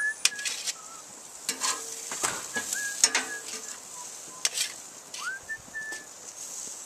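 Metal spatula clinking and scraping on a propane grill's grate while burgers sizzle, as onion slices are set on them. A few short high chirps sound in the background.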